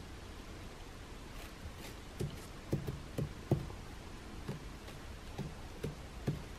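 Quiet, irregular light taps and knocks, about a dozen from around two seconds in, from cat play with a pom-pom on a wooden stick: the stick and the cat's paws knocking about the cat bed.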